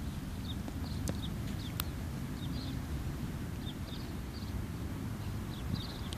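Outdoor ambience: a steady low rumble, with small birds chirping in short bursts now and then and two faint clicks about one and two seconds in.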